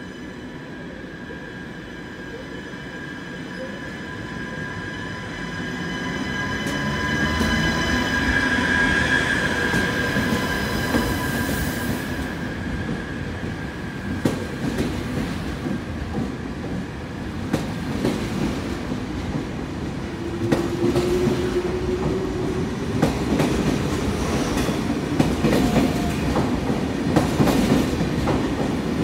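TGV Duplex double-deck high-speed train pulling out and gathering speed past the platform. A whine of several steady high tones grows louder over the first ten seconds, then the wheels click over the rail joints more and more often.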